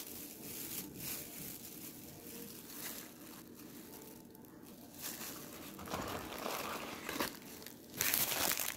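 Plastic snack packaging crinkling and rustling as it is handled, louder in the last few seconds with a sharp crackle just before the end.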